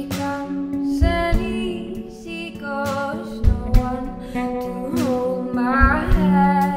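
A song: a woman sings a wavering melody over guitar, with drum hits through it.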